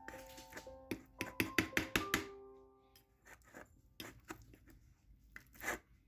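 Metal spoon clinking and scraping against a small ceramic bowl while mixing wet cat food. The quick clinks come thick in the first two seconds, then give way to softer, sparser scraping.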